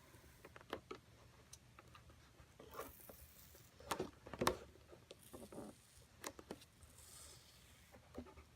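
Masking tape being slowly peeled off the inside of a freshly painted clear plastic RC car body, with irregular crackles and taps from the thin shell being handled, loudest about four seconds in.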